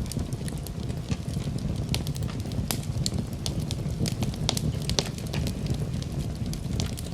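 Campfire burning: a steady low rumble of flames with frequent sharp crackles and pops of burning wood, scattered irregularly.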